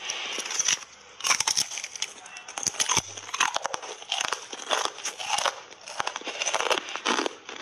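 Biting and chewing hard frozen cola ice bars coated in matcha powder: irregular loud crunches of ice breaking between the teeth, with sharp cracks among them.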